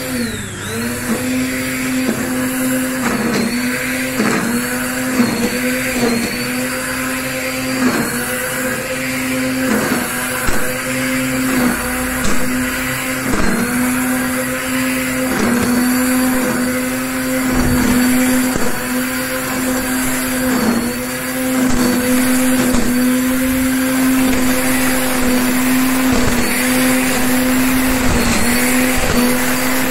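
Black & Decker GrassHog 800 W corded electric string trimmer running at a steady high pitch. The whine dips briefly every second or two as the spinning line cuts into the grass.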